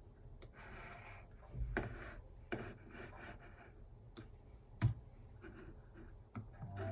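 Small hard objects being handled: irregular soft clicks and taps with short scraping rubs, and a louder knock about two seconds in and another near five seconds.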